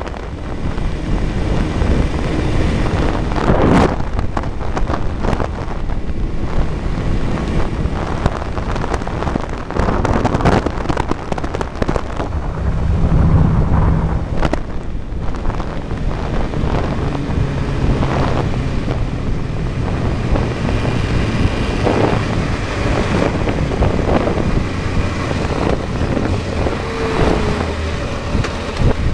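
Wind buffeting a helmet-mounted camera's microphone over the running inline-four engine of a Honda CBR600F3 motorcycle at road speed, with gusty swells throughout and the engine note showing through low down in places.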